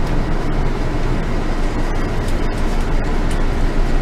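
Scania K380 coach heard from inside the cabin while moving: a steady, deep engine and road rumble.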